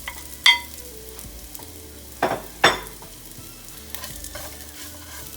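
Garlic and onion sautéing in oil in a pan, a steady sizzle, with a utensil stirring and knocking sharply against the pan three times, about half a second in and twice a little past the middle.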